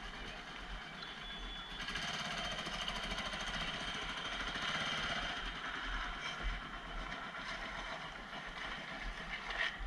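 A machine running with a fast, steady mechanical rattle. It gets a little louder about two seconds in, and a few sharp clicks come near the end.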